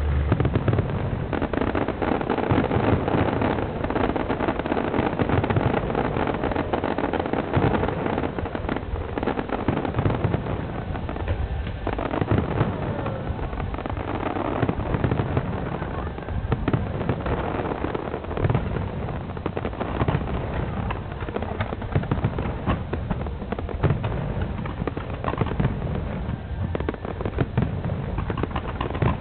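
Aerial fireworks display: a continuous, dense barrage of bangs and pops from many shells bursting in quick succession.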